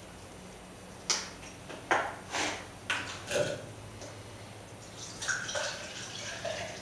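Objects being handled at a workbench: several sharp knocks and clatters in the first few seconds, then a softer rattle, over a steady low hum.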